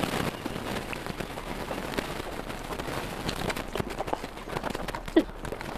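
Close-miked eating sounds: a hand squeezing and mixing rice with oily curry, and open-mouthed chewing, heard as a dense run of small wet clicks and smacks. One sharper, louder mouth sound comes about five seconds in.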